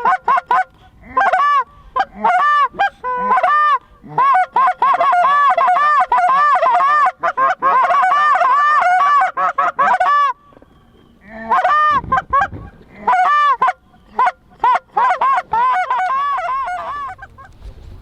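Canada goose honks and clucks in fast, loud runs of short calls, with a brief break partway through, thinning out and fading near the end.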